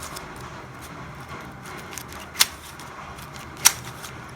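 A Yuxin Kylin V2 M magnetic 3x3 speedcube being turned by hand: a sandy, scratchy rustle of the layers turning, with two sharp clicks, one a little past halfway and one near the end.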